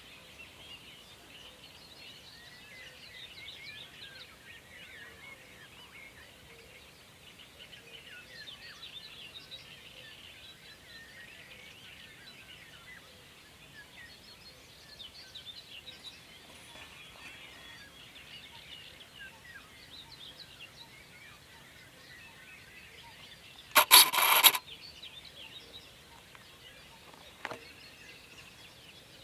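Many faint bird chirps and calls overlapping in a steady chorus of high-pitched notes. About 24 seconds in, a sudden loud noise lasts under a second.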